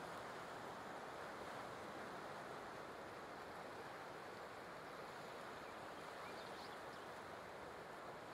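Faint, steady wash of ocean surf on a beach.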